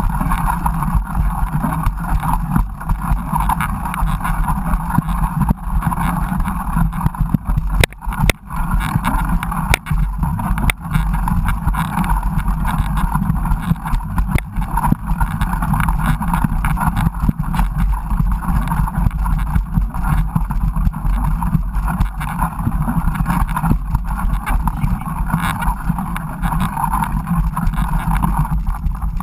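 Steady wind and riding noise from a mountain bike moving along a trail, a continuous rumble with a few sharp knocks from bumps along the way.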